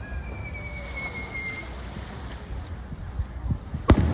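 Fireworks display: a thin whistle, sliding slightly down in pitch, fades out in the first couple of seconds over a low rumble, and one sharp firework bang cracks near the end.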